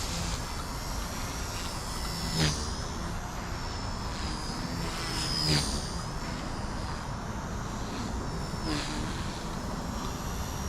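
XK K110s micro collective-pitch RC helicopter in flight: its brushless motor and rotors make a steady high whine that wavers a little and dips briefly in pitch three times. A constant rushing noise lies beneath.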